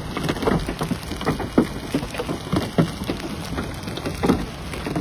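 Heavy rain beating on a hard surface: a steady wash of noise with many separate drops striking sharply and irregularly.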